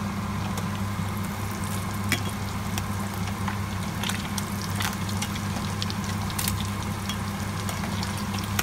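Slices of meat frying in bubbling oil in a stainless steel saucepan: a steady sizzle with scattered pops and the clicks of a metal utensil turning them, over a steady low hum.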